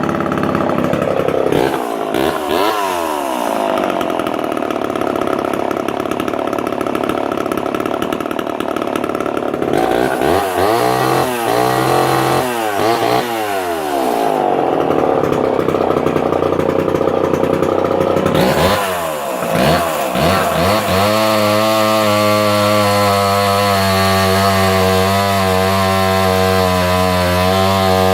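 Homelite Super XL Automatic two-stroke chainsaw running loud, revved up and down several times, then held at a steady speed from about two-thirds of the way in.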